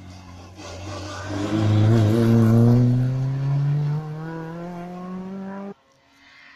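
Rally car engine accelerating hard, its pitch rising steadily as it pulls through a gear, loudest about two seconds in. The sound cuts off suddenly near the end.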